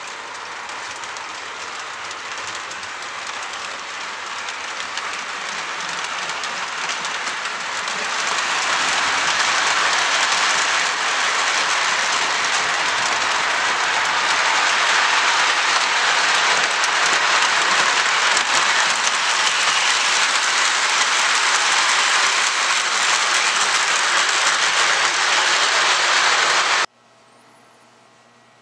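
Model train headed by two model steam locomotives running on the layout track, a steady rumble of wheels and mechanism that grows louder as the train approaches, then cuts off suddenly near the end.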